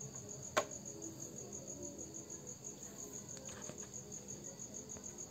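Insects chirping steadily, a high pulsing trill at about five pulses a second, with one short sharp click about half a second in.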